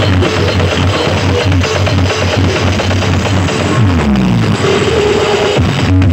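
Loud electronic dance music with a heavy, pounding bass beat from a carnival sound system. About four seconds in, the beat breaks for a falling sweep and a deep rumble, then comes back near the end.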